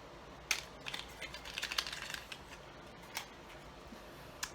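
A mascara sample and its packaging being handled: a run of light clicks and crinkly rustles, busiest in the first half, with a few single clicks after.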